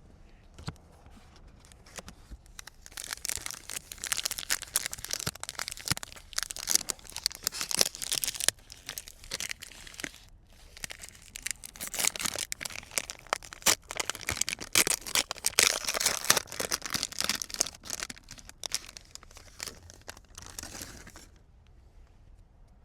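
Card packaging being torn open and crinkled by hand: dense crackling and tearing that starts a couple of seconds in, pauses briefly about ten seconds in, and dies away near the end.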